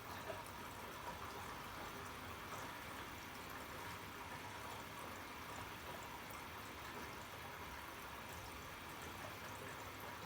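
Arçelik 3650 SJ washing machine taking in water during its wash cycle: a steady hiss of water running into the drum.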